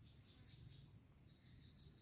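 Near silence: faint outdoor ambience with a steady high-pitched insect drone and faint, quickly repeated chirps.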